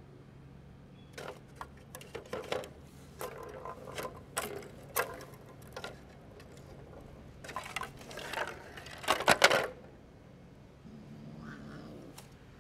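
Plastic balls clattering and rolling in the tracks of a plastic tower-of-tracks cat toy as cats bat at them with their paws: an irregular string of clicks and rattles, loudest in a quick burst a few seconds before the end.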